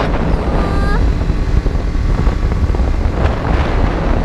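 BMW G310GS single-cylinder engine running at cruising speed while riding, under heavy wind noise on the microphone. The steady engine hum sinks beneath the wind rush after about a second.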